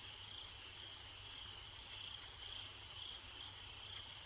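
Crickets chirping steadily, about two chirps a second.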